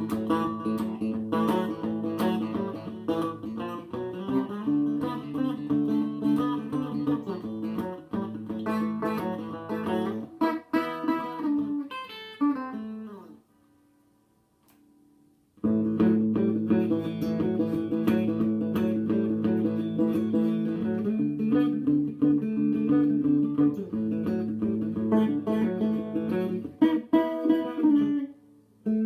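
Tokai ST50 electric guitar, a copy of a mid-1960s Stratocaster with VI pickups, played on its bridge pickup through a Tokai TA-35 OC transistor amp. It plays two passes of a strummed chord progression, each ending in a falling run of notes, with a pause of about two seconds between them.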